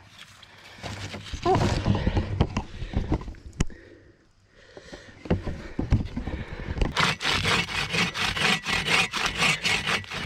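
Dead standing wood being broken up and worked for firewood: crackling and scraping of dry wood, a few heavy thuds midway, then fast, even scraping strokes through the last few seconds.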